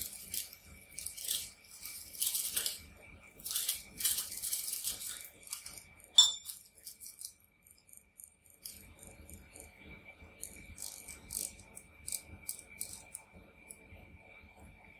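Crinkling, rustling handling noise in several bursts, a sharp click about six seconds in, then quieter scattered ticks, over a faint steady high tone.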